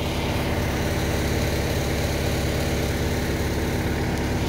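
Vermeer BC1000XL brush chipper's engine running steadily at a constant speed, with no wood being fed through.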